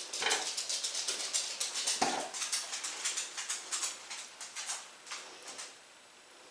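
Quick run of light clicking and tapping from kitchen work, about four or five taps a second, fading out near the end.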